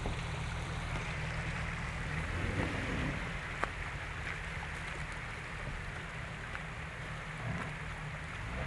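A 4x4's engine running low and steady as it crawls up a rocky trail, under a steady rushing noise, with one sharp knock about three and a half seconds in.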